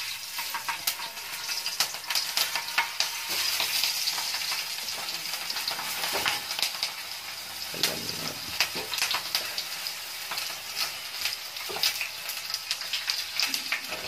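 Stuffed long green chillies sizzling and crackling in hot oil, the sizzle swelling each time another chilli is laid in the pan.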